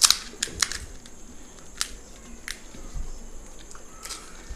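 Crisp fuchka (pani puri) shells cracking and crunching as they are handled and bitten, a handful of sharp, irregular crackles with the loudest right at the start.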